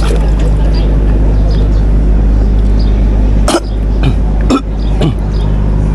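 A boat engine idling with a steady low hum, and a man coughing three times in the second half.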